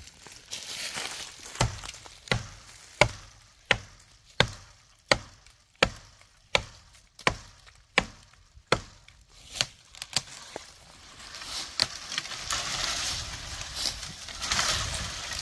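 Condor tomahawk's steel head chopping into the trunk of a small standing tree: a steady run of about a dozen sharp strikes, roughly one every 0.7 seconds, then a spell of rustling noise near the end.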